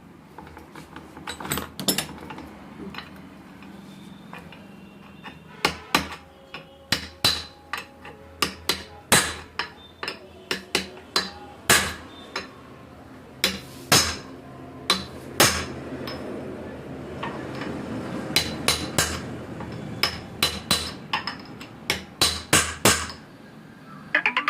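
Hammer blows on metal: dozens of sharp, ringing strikes at an uneven pace, often in quick runs of two or three, over a low steady hum that stops near the end.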